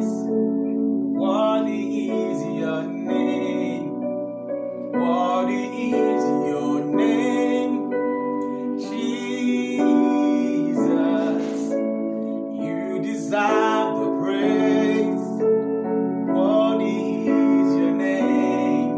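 Gospel worship music: a solo voice sings drawn-out phrases with vibrato over sustained piano or keyboard chords.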